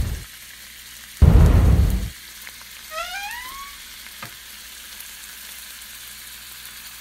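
A deep rumbling boom about a second in, lasting under a second, over a steady faint crackling hiss. A couple of seconds later comes a quick run of short rising chirps, then a single click.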